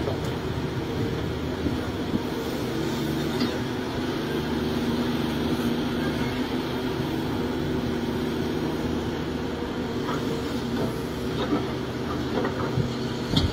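Cat 336 hydraulic excavator's diesel engine running steadily under load as it digs and loads dirt into a dump truck, with a few knocks near the end.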